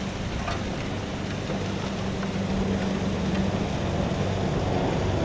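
Vehicle engine running steadily under a rush of road and wind noise while driving, a little louder from about halfway; it cuts off suddenly at the end.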